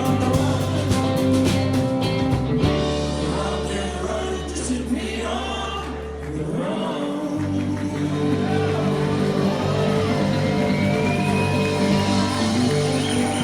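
Rock band playing a song with a voice singing over guitar and bass.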